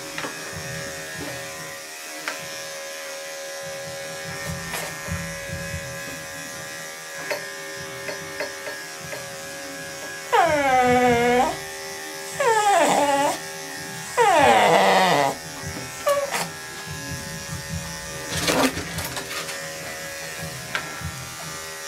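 Electric dog clippers running with a steady hum on a toy poodle. About ten seconds in the dog gives three loud, short whining cries, each falling in pitch.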